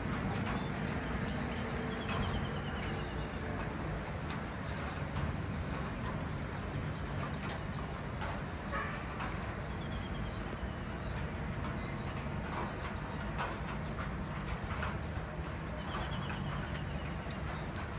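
Steady rain falling in a thunderstorm, with irregular drips and taps close by. A bird gives a short high trill three times.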